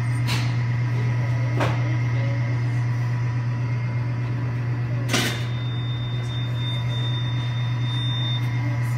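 Steady machine hum with a few short knocks: one about half a second in, one after a second and a half, and the loudest about five seconds in.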